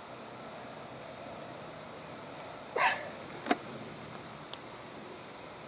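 Steady night-time insect chorus, with one short, sharp sound about three seconds in and a brief click half a second later.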